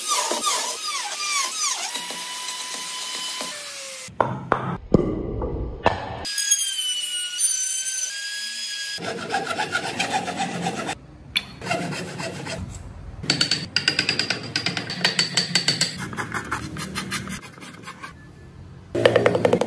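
Woodworking tool sounds in several cut-together takes: an electric router whining in the first few seconds, then hand tools scraping and cutting into a hardwood block in quick repeated strokes.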